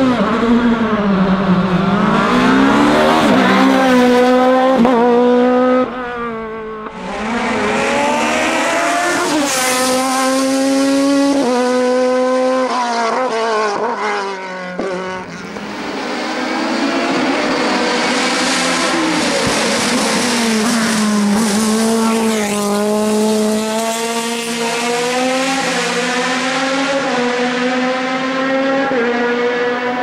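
Racing sports-prototype engines at full throttle, revving high and shifting up through the gears again and again in quick succession. The sound breaks off twice, about six seconds in and again about fifteen seconds in, and a fresh run follows.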